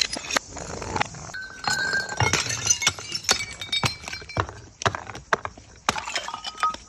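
Glass bottles breaking: a quick, uneven run of sharp cracks, crashes and clinks of glass, with brief ringing tones from the glass between the hits.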